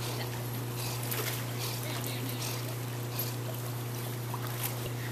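Water gently sloshing and trickling as a dog paddles through a swimming pool, over a steady low hum.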